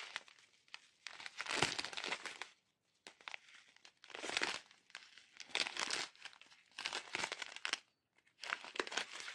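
Strip of clear plastic sachets of round diamond-painting drills crinkling as it is handled and turned over, in short bursts of about a second with brief pauses between them.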